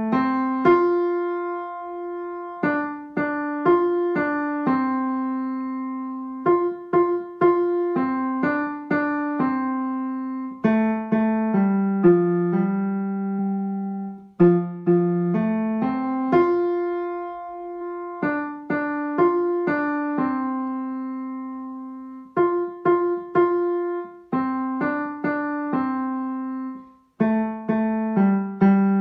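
A child plays a simple beginner's melody on a digital piano with the right hand alone, mostly one note at a time. The notes ring and fade in short phrases with brief breaks between them.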